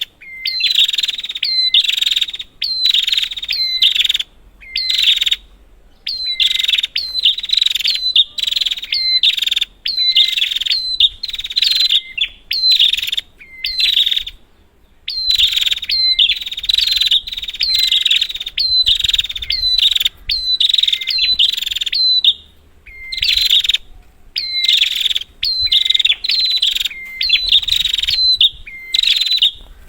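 Prenjak (prinia) calling: fast runs of short, shrill, repeated chattering notes, in bouts broken by brief pauses.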